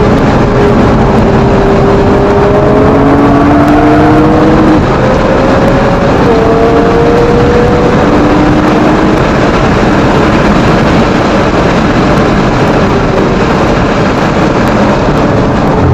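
Nissan GT-R's engine heard from on board at speed on a race track, its note slowly rising under load and stepping down once about six seconds in, under constant wind and road noise. In the second half the engine tones fade and the wind and road noise dominate.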